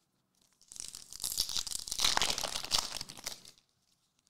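Foil wrapper of a trading card pack being torn open and crinkled: a dense crackle of about three seconds, starting just under a second in.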